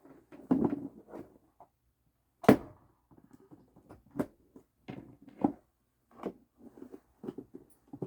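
Scattered clicks and knocks of plugs and a plastic power strip being handled, at uneven intervals, with one sharp knock about two and a half seconds in.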